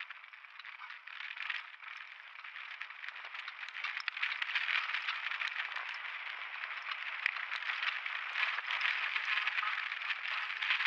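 Downhill mountain bike rattling and clattering down a rutted dirt track: many small knocks over a steady rushing noise, getting louder over the first few seconds.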